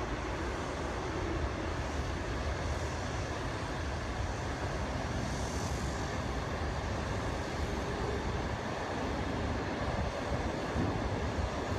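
Passenger train, led by an HXD3D electric locomotive, rolling across the rail deck of a long double-deck bridge: a steady low rumble of wheels on rails.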